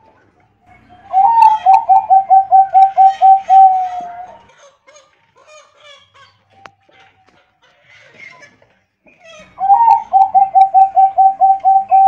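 Bangkok-strain zebra dove (perkutut) cooing in two phrases. Each is a quick, even string of about ten coos that opens on a higher note and trails off in a longer falling note; the second phrase starts near the end. Faint chirps of other birds sound between the phrases.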